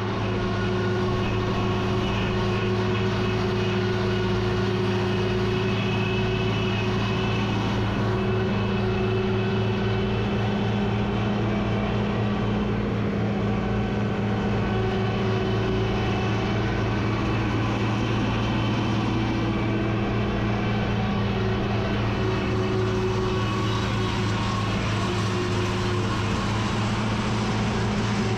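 A vehicle engine running at a steady speed, a constant low drone that does not rise or fall.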